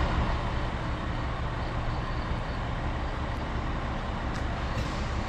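Steady outdoor background rumble and hiss with no distinct event, heaviest in the low end.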